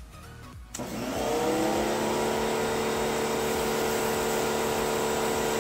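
Sun Joe electric pressure washer starting up as the trigger is pulled, about three-quarters of a second in: the motor and pump rise in pitch for about half a second, then run steadily. Over it is the hiss of a straight-stream jet striking concrete.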